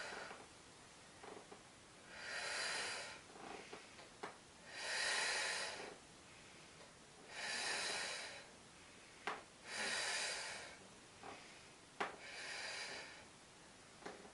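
A woman breathing heavily in time with slow Pilates leg circles, a long audible breath out about every two and a half seconds. A few short clicks fall between the breaths.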